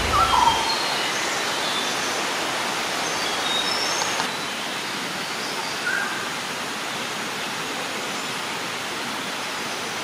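Steady rushing of a small jungle creek's flowing water, with a few faint bird chirps over it.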